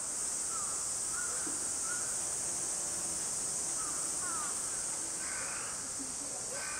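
Steady, high-pitched drone of a summer cicada chorus, with short falling bird calls repeating over it.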